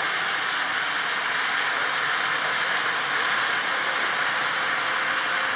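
Large RC model helicopter's engine running on the ground with a steady hiss and a high whine, its main rotor turning slowly and beginning to spin up for takeoff.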